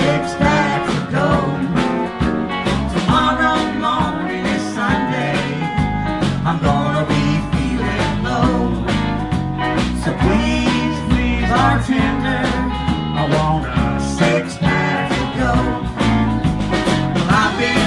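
Live band playing a country-blues rock instrumental passage: electric guitars with bending lead lines over electric bass and a drum kit keeping a steady beat.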